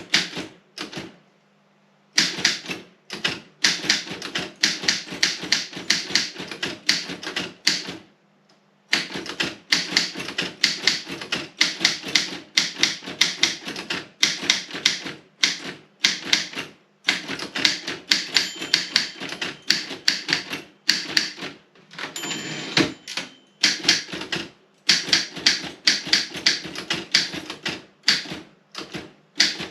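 Robotron 20 typewriter being typed on in fast runs of key strikes, with short pauses about two and eight seconds in, over a steady low hum.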